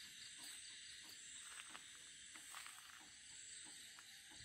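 Near silence: a faint steady high-pitched hiss with a few soft ticks.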